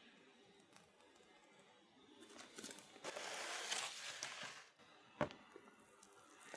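Plastic piping bag crinkling as it is squeezed to pipe ladyfinger batter, for about two seconds from about three seconds in. A single sharp tap follows near the end.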